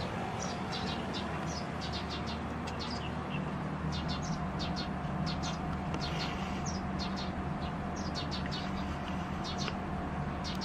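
National CU-915KH mini-split air conditioner outdoor unit running with a steady low hum and a thin steady whine, noisy, which the owner blames on worn-out vibration absorbers. Birds chirp in quick high notes throughout, over the hum.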